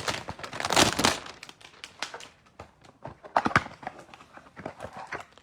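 Foil wrapper of a Panini Mosaic basketball card pack crinkling as it is torn open, with the cards inside handled. The loudest crinkle comes in the first second, followed by scattered sharp clicks and rustles.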